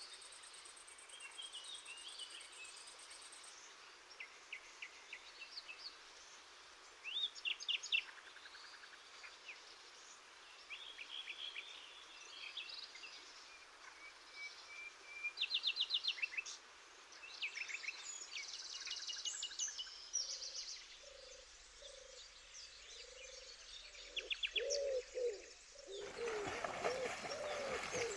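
Dawn birdsong by a river: many birds chirping and trilling in short phrases, joined from about twenty seconds in by a bird repeating lower, rounder notes, over a faint steady rush of water.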